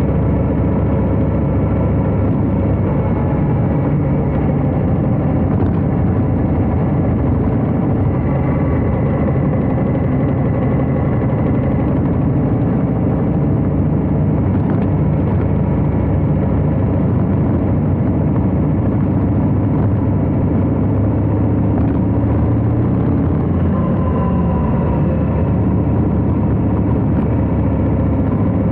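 Harley-Davidson Heritage Classic FLHC's V-twin engine running steadily under way, its note stepping up and down a little as the throttle changes.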